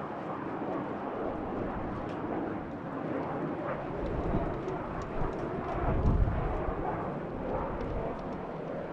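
Jet airliner engines running as the aircraft moves on the runway, a steady rushing noise that swells to its loudest about six seconds in. Gusty wind buffets the microphone throughout.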